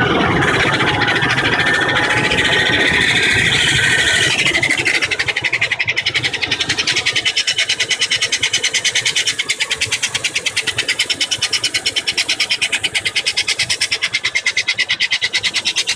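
2000 GMC Yukon XL's 5.3 V8 engine running with a fast, even, high-pitched chirping squeal, several pulses a second, that comes in about four and a half seconds in after a wavering high-pitched sound. The owner says the squeal appears only once the engine is warm. He first suspected the water pump but now thinks it comes from the passenger side or inside the engine.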